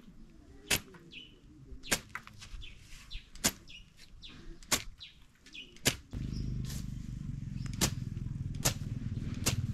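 Grass slasher blade swung low through grass, a sharp swishing cut about once every second or so. Small bird chirps come in between the strokes, and about six seconds in a low steady rumble joins them.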